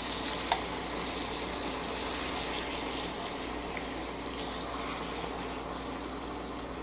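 Ground beef and its fat sizzling on a George Foreman electric grill plate while a spatula scrapes and chops through the meat, with one sharp tap about half a second in. The sizzle slowly fades.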